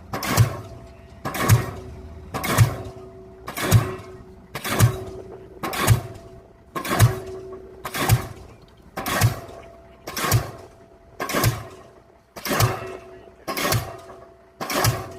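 Diesel pile hammer driving a pile: a sharp, heavy blow about once a second in a steady rhythm, each with a deep thud and a short ring. A faint steady hum carries on between blows.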